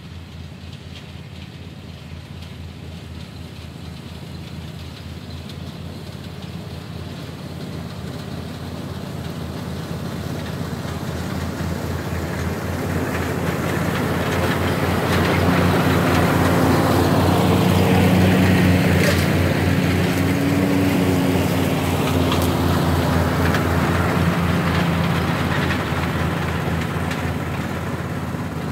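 An engine passing slowly by: it grows steadily louder for about eighteen seconds, then fades again.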